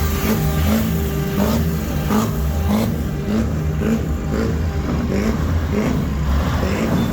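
Vehicle engines running in street traffic, a steady low rumble, with a sustained horn chord dying away in the first half second.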